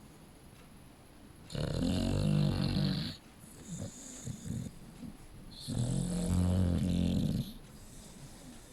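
A 4.5-month-old Dogue de Bordeaux puppy snoring: two long, loud, low snores about four seconds apart, with softer breathing between them.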